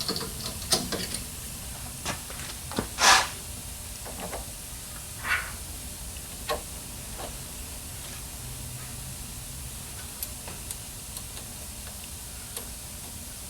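Tools and suspension parts being handled: scattered clicks and light knocks, with a short louder noise about three seconds in and a smaller one about two seconds later, over a steady hiss.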